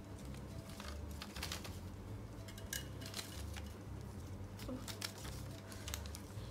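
Small folded paper slip rustling and crinkling as fingers pick it out of a wire-mesh cup and unfold it, in scattered light ticks and crackles.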